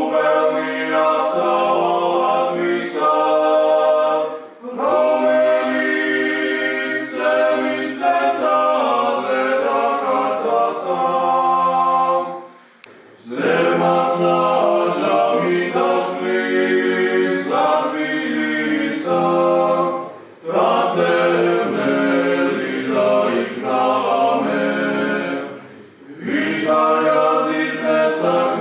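A cappella choir singing in several parts in an Orthodox church, in long phrases broken four times by short pauses.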